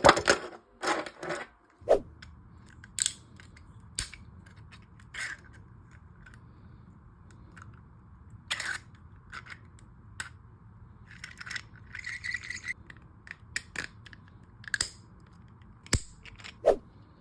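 Scattered sharp clicks and short scrapes of hard plastic parts being handled, over a faint low steady hum.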